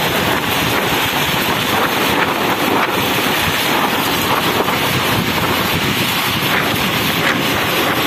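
Strong storm wind gusting hard across the microphone, with heavy rain falling.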